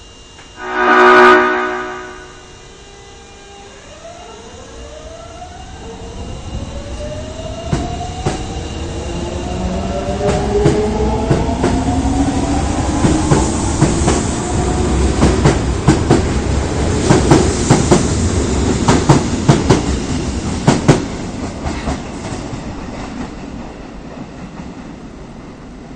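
Osaka Metro 22 series subway train sounds its horn once, briefly, about a second in; this set's horn has an unusual, off tone. The train then pulls away, its motor whine rising steadily in pitch as it gathers speed, with wheels clacking over rail joints. The noise fades near the end.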